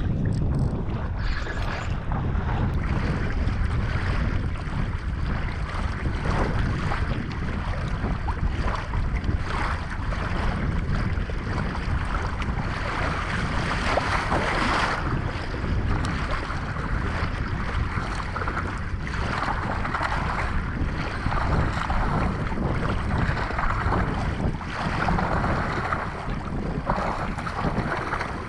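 Steady wind noise on the microphone, with water washing against the kayak hull.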